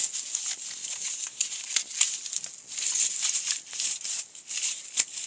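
Corrugated cardboard strips rustling and crackling as they are handled and squeezed together, with many small clicks.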